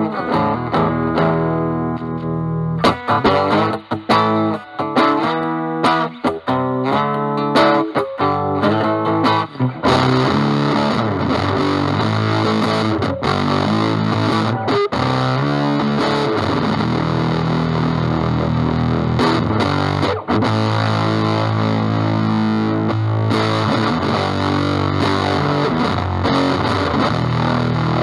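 Fender Stratocaster electric guitar through a Dunlop JDF2 Fuzz Face pedal with NTE158 germanium transistors into a Vox Pathfinder 15R amp's clean channel, playing fuzzed lead phrases. Separate picked notes for the first ten seconds or so, then an unbroken, denser stretch of sustained playing.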